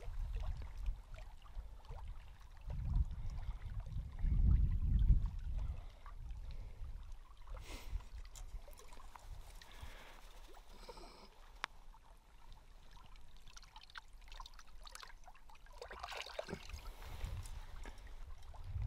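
Wind buffeting the microphone in low rumbling gusts, strongest a few seconds in and again near the end, over small lake waves lapping and trickling among the shore rocks.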